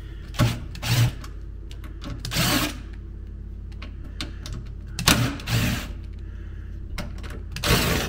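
Cordless drill-driver whirring in several short spurts, each under half a second, as it backs out the screws holding the refrigerator's water inlet valve.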